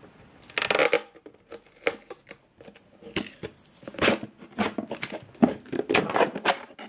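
Adhesive tape being pulled and torn off a clear plastic display box, mixed with crackling and clicking of the plastic as it is handled. An irregular run of short rips and crinkles, with the loudest bursts about a second in and again from about four seconds on.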